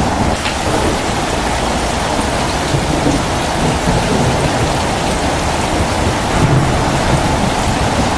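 Steady rain falling, with low rumbling thunder underneath that swells briefly near the end.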